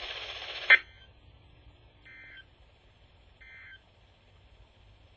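Weather radio hiss cut off by a click just under a second in, then two short, faint warbling data-tone bursts about a second and a half apart: the EAS end-of-message code that closes the warning broadcast.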